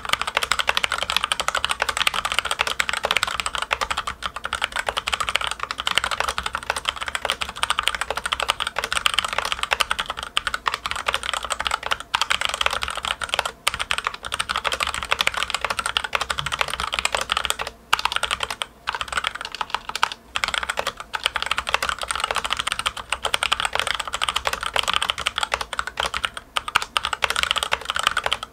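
Logitech K835 TKL mechanical keyboard with TTC Red linear switches and ABS keycaps being typed on fast and continuously, a dense run of key clacks with a few brief pauses.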